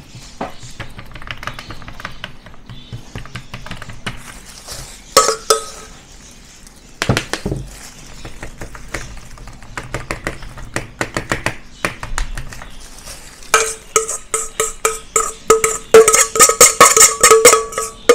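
A metal spoon scrapes and pats a damp fish-food paste across a metal baking tray, with soft scrapes and clinks. About five seconds in, and again through the last four seconds, the spoon strikes the tray: a fast run of taps, each one ringing.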